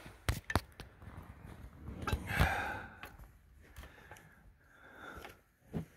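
Sharp knocks and clicks of a strap wrench handle against metal as it is worked on a tractor's oil filter, with a loud strained breath about two seconds in.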